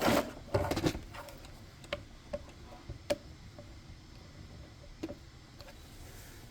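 Handling noise, then a few sharp, separate clicks and ticks from the small plastic and metal parts of a Bambu Lab A1 Mini hotend assembly and its nozzle spring clasp being worked by hand.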